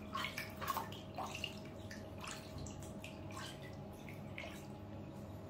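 Water dripping and lightly splashing in a small plastic tub as a wet tamarin is bathed: a scatter of small drips and splashes, busier in the first couple of seconds and sparser after, over a faint steady hum.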